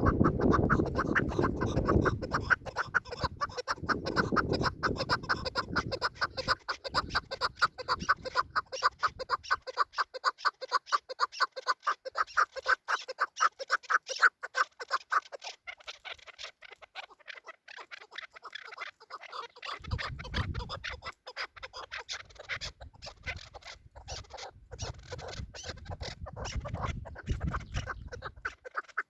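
Chukar partridge calling: a long, fast run of repeated clucking 'chuk' notes. A low rumble of wind or handling noise comes in at the start and again about two-thirds of the way through.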